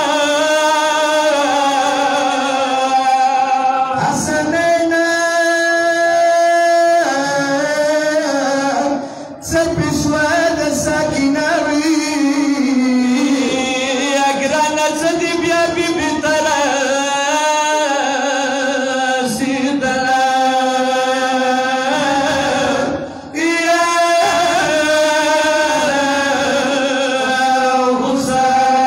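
Unaccompanied male singing of a Pashto noha, a Shia mourning lament, in long drawn-out wavering notes through microphones. It breaks briefly for breath twice, about a third of the way in and again past three-quarters.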